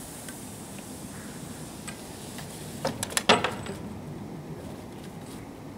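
Skis and ski poles clattering: a quick run of hard knocks about three seconds in, over a faint steady outdoor background noise.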